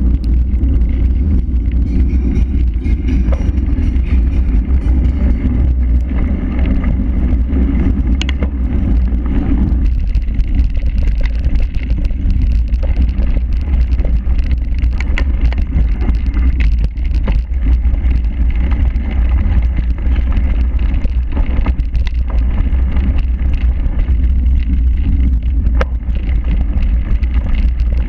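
Cyclocross bike riding at race speed, heard through a bike-mounted action camera: a loud, steady low rumble of wind and rolling vibration with scattered knocks and rattles. It is rougher over cobblestones for the first ten seconds or so, then eases as the tyres move onto grass and mud.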